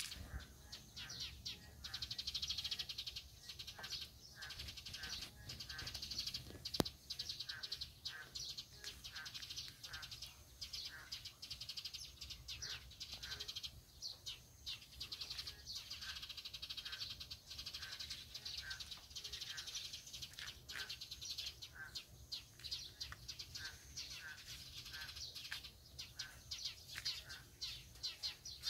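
A chorus of boreal digging frogs (Korean narrow-mouthed toads, Kaloula borealis) calling, many short calls repeating and overlapping densely. A single sharp click comes about seven seconds in.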